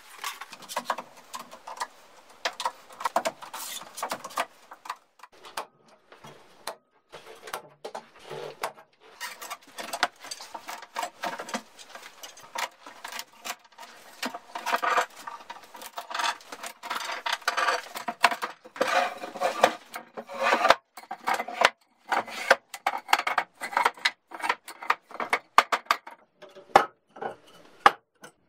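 Irregular clatter and knocks of steel pipe clamps and wooden boards being handled on a workbench: metal clanks of the clamps and hollow wooden knocks as pieces are moved and set down.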